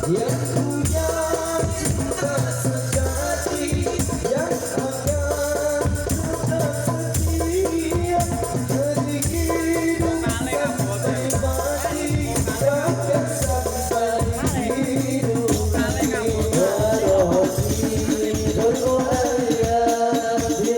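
A sholawat song played loud through a party sound system: a melody over a bass pattern repeating about once a second, with rattling percussion.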